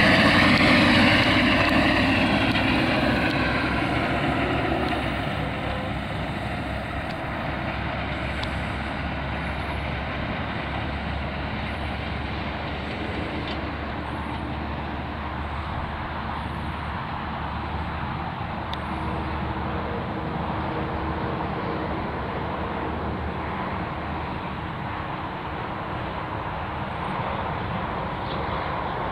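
1985 AM General HMMWV M998's 6.5-litre diesel engine driving past, loudest at the start and fading over the first few seconds as the truck pulls away. It then settles into a steady, distant rumble as it drives off.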